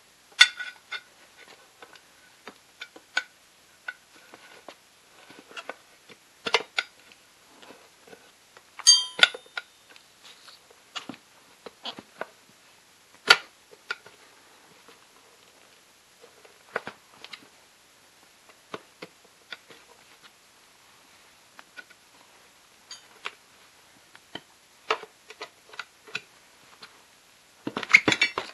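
Metal tire irons clinking, knocking and scraping against a scooter wheel rim as a tire is levered onto it by hand. The strokes are irregular, and a few ring briefly like struck metal. Near the end comes a close burst of knocks and rubbing.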